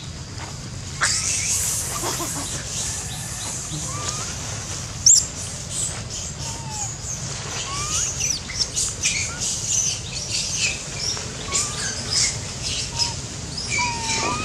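Outdoor ambience of scattered short chirps and squeaky calls, some rising, over a low steady hum, with one sharp click about five seconds in.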